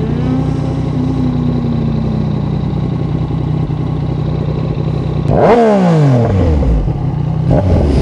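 Yamaha MT-09's inline-three engine running through a Yoshimura R55 slip-on exhaust, steady at first, with a sharp rev about five seconds in that climbs quickly and falls away over a second.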